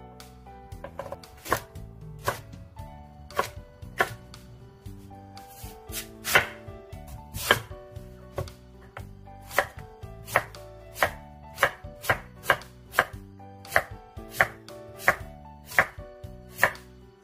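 Chef's knife chopping on a wooden cutting board, slicing Korean radish. The strikes are irregular at first, then settle about nine seconds in into a steady run of roughly two cuts a second, some of them sharp and loud.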